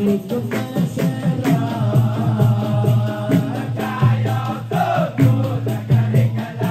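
Dikir barat: a seated troupe singing and chanting together to a steady, driving percussion beat.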